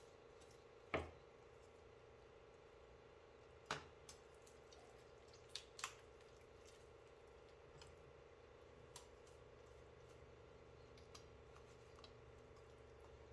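Knife and raw chicken being worked on a plastic cutting board during deboning: a few sharp clicks and knocks, the loudest about a second in, a cluster a few seconds later and fainter ones after, over a faint steady hum.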